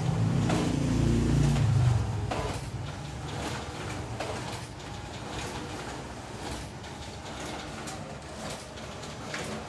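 Ricoh MP 6054 copier running while making copies. A loud low hum drops away about two seconds in, leaving a quieter mechanical run with irregular clicks and ticks as sheets are fed and ejected into the output tray.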